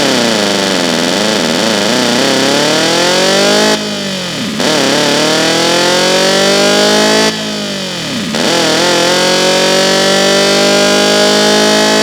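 Synthesized imitation of a Nissan SR20DET turbocharged four-cylinder's exhaust note, made in FL Studio, accelerating through the gears. The pitch climbs steadily, drops sharply at two upshifts about four and seven and a half seconds in, then climbs again.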